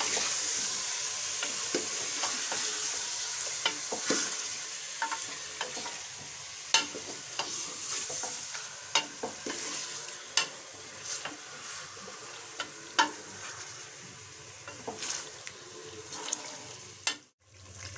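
Chunks of meat sizzling in hot oil in an aluminium pressure cooker as they are browned, stirred with a wooden spoon, with frequent sharp clicks and knocks. The sizzle slowly fades and cuts out briefly near the end.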